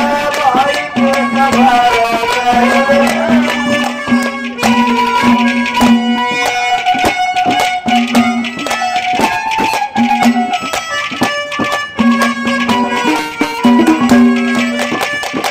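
Instrumental interlude of Haryanvi ragni folk music between sung verses: a melody instrument plays held and wavering notes over steady hand-drum beats.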